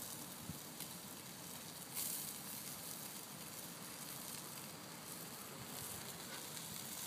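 Sausages and chicken skewers sizzling over the charcoal of a small round barbecue grill: a steady hiss with faint crackles, and one short, louder crackle about two seconds in.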